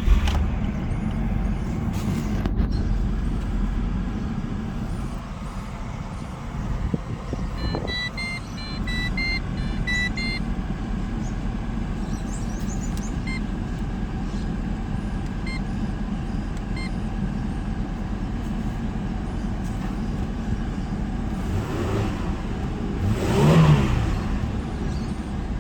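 Holden VY Commodore's Ecotec V6 idling steadily, with a short run of electronic beeps about eight seconds in and a brief louder swell that rises and falls near the end.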